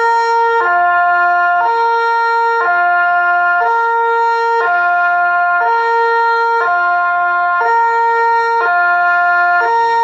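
Electronic siren sounding the Swiss fire alarm, the Cis-Gis two-tone signal. A higher and a lower tone alternate about once a second, which is the call for firefighters to report to the fire station.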